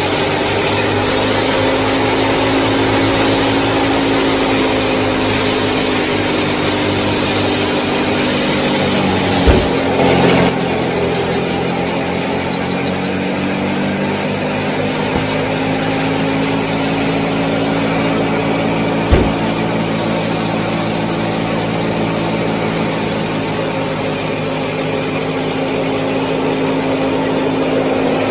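Small motor-driven model thresher running with a steady whine. About ten seconds in, its pitch sags briefly and climbs back, and there are two sharp knocks, one there and one near the two-thirds mark.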